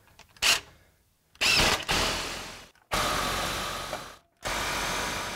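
Cordless power driver running a socket in several bursts, a short one about half a second in, then three longer runs of a second or more, as it tightens the bolt of the exhaust tailpipe's hanger clamp.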